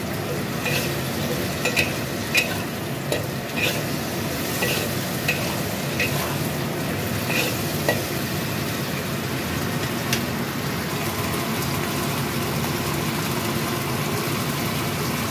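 Vegetables and fish sausage sizzling steadily in a black wok, with a metal spatula clinking and scraping against the wok about once or twice a second for the first two-thirds. The stirring stops and the sizzle carries on alone.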